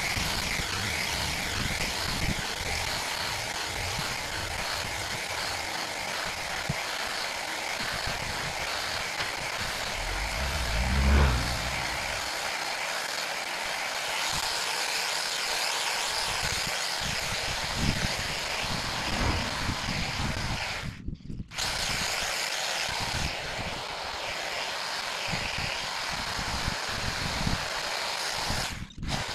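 Cordless Husqvarna hedge trimmer running steadily, cutting a hedge. About ten to twelve seconds in, a low rumble swells and fades as a vehicle passes, and the sound cuts out briefly twice near the end.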